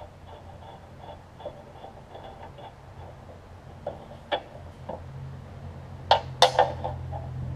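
Hands working on a mower deck's belt and pulleys, with faint handling ticks, then a few sharp metallic clinks of hand tools being picked up near the end. A low steady hum comes in about halfway.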